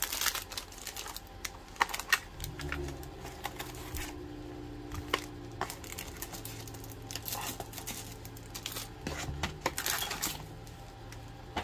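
Small plastic-bagged lash-extension supplies being unpacked and set down on a table: crinkling of plastic packaging with scattered light clicks and taps. A low steady hum sits underneath from a few seconds in.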